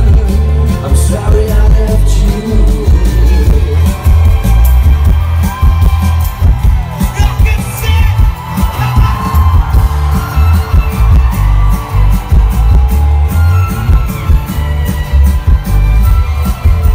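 Live rock band playing with a male voice singing held notes over a heavy bass, loud and close through a phone microphone in the crowd, with some crowd noise.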